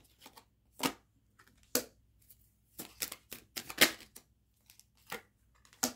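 Tarot cards being handled and laid down on a tabletop: a string of light, separate taps and snaps, the sharpest a little before four seconds in.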